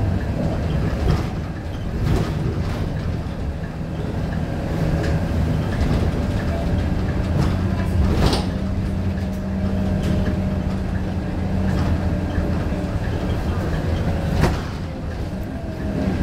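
Scania K230UB city bus's five-cylinder diesel engine running as the bus drives, with steady low engine drone and rattling from the bus body. Two sharp knocks, about eight seconds in and again near the end.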